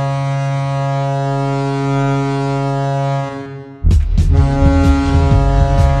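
Colorado Eagles' arena goal horn blowing one long, steady, deep blast that dies away about three and a half seconds in. The horn then sounds again, joined by loud, heavy low beats and sharp hits as the goal song starts.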